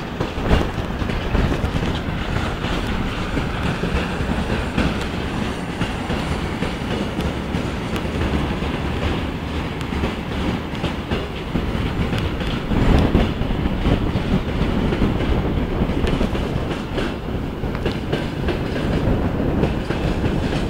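Freight train wagons rolling past beneath a bridge, steel wheels clattering over the rail joints in a steady run, louder about two-thirds of the way through and again near the end.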